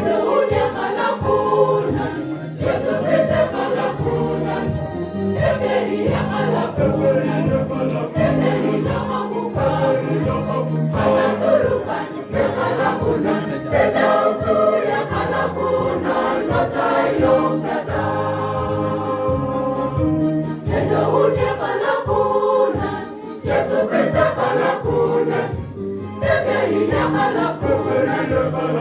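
Choir singing a Christmas carol, many voices together.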